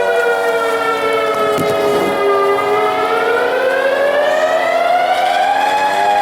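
Outdoor tornado warning sirens wailing: the loudest siren's pitch dips over the first couple of seconds and then climbs again, over a steadier, lower siren tone. The sound signals a tornado warning.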